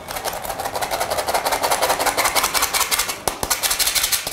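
Flour being sifted with a flour sifter: a fast, even rasping rhythm of many strokes a second, dipping briefly near the end.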